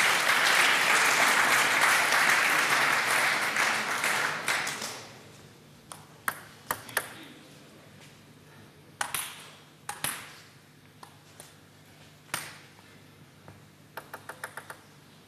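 Crowd applauding for about five seconds after a rally in a table tennis match, fading out. Then come scattered sharp clicks of a table tennis ball hitting the table and floor. Near the end there is a quick run of bounces as the server bounces the ball on the table before serving.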